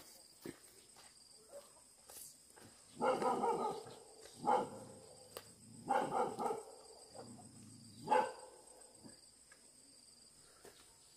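A dog barking in four short bouts over a few seconds.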